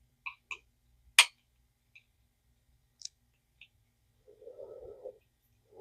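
Parts of a Zebco 404 fishing reel being handled during disassembly. A few light clicks, one sharp clack about a second in, then scattered small ticks and a short muffled rubbing near the end.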